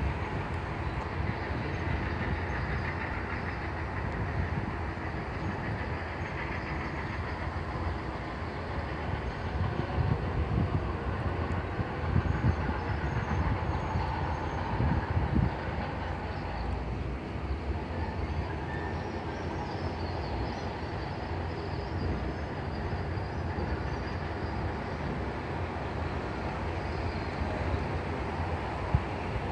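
Steady outdoor background rumble and hiss with irregular low gusty swells, and no single distinct event standing out.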